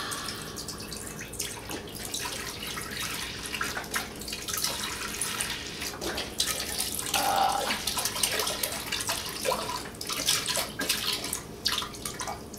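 Chicken broth splashing steadily as it is poured from a carton into a crock-pot.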